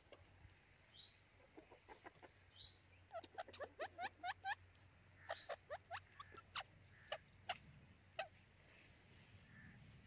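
White Indian ringneck parakeet giving a run of short, soft chirps and chatters, a few of them sharper high squeaks, quickest in the middle and dying away about two seconds before the end.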